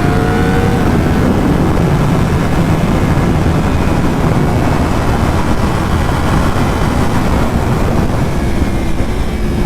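Steady rush of wind over the rider's microphone at speed, with the Yamaha R1's inline-four engine running underneath. Its note rises briefly at the very start.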